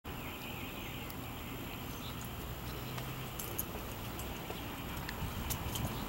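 Outdoor background noise: a steady low hiss and hum with scattered faint clicks and ticks that come more often in the second half.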